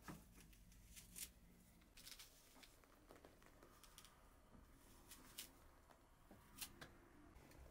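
Faint, scattered clicks and crunches of a knife slicing a peeled raw vegetable held in the hand.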